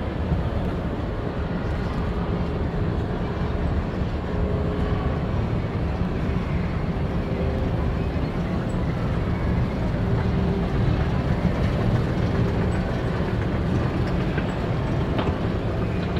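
Steady low rumble of a moving escalator, with the general hum of a busy indoor shopping mall around it. A few faint ticks near the end.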